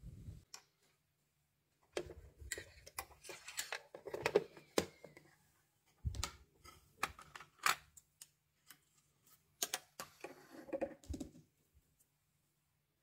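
Irregular clicks and light rattles of small hard plastic and metal parts being handled: presser feet being taken from a plastic accessory box and set down on a sewing machine.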